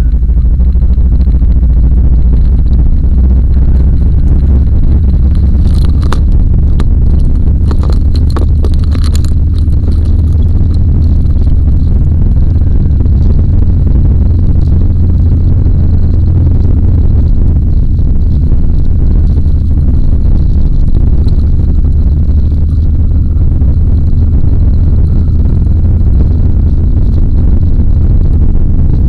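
A car driving, heard from inside the cabin: a loud, steady low rumble of engine and road noise. A short run of clicks and knocks comes about six to nine seconds in.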